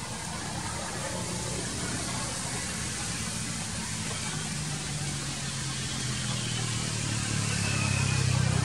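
An engine running, a steady low hum over a constant hiss, growing louder near the end.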